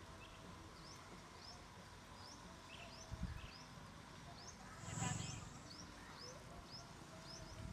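A small bird calling over and over in short, rising chirps, about two a second. There is a soft thud about three seconds in and a brief louder rustle-like noise about five seconds in.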